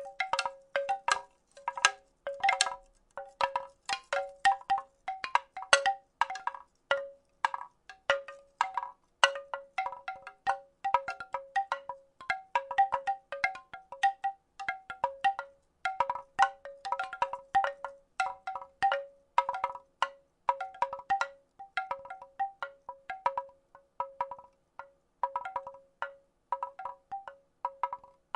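A wooden rattle shaken in an irregular run of quick clacks, several a second, each with the same short ringing note.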